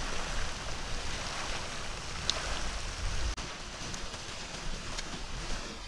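Wind on the microphone: a steady outdoor rush with a gusting low rumble. A brief high chirp sounds a little over two seconds in.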